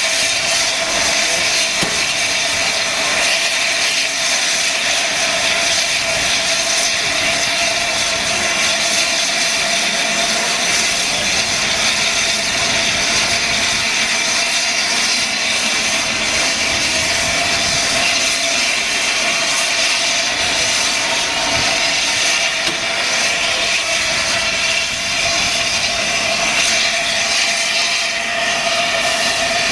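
Steam locomotive 60163 Tornado, an LNER Peppercorn A1 Pacific, venting steam with a loud, steady hiss.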